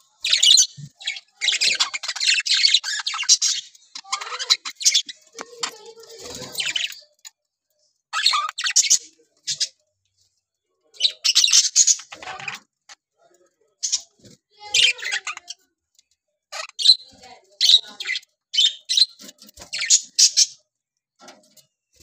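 A flock of budgerigars chattering and chirping in scratchy bursts of a second or two, with short pauses between them.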